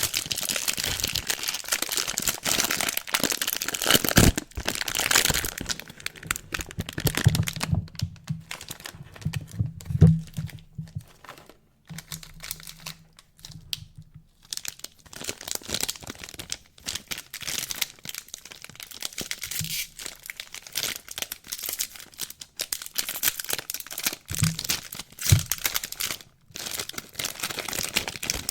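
Soap packaging being unwrapped by hand: wrapping crinkling and tearing, with a quieter stretch in the middle and a few soft knocks.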